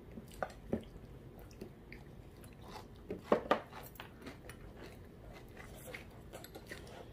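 Children eating a meal: quiet chewing with scattered light clicks of chopsticks on the rice bowls and dishes, and a couple of louder knocks about three and a half seconds in.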